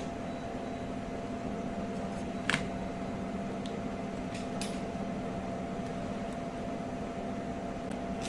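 A steady machine hum with a few steady tones running through it, broken by one sharp click about two and a half seconds in and a few light ticks shortly after.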